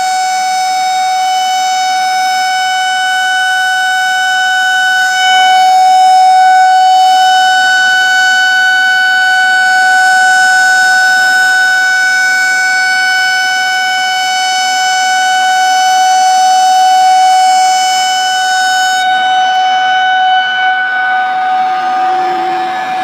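Dam discharge warning siren sounding one long, steady, loud tone, the alarm given before the dam's gates release water into the river. The tone thins slightly near the end.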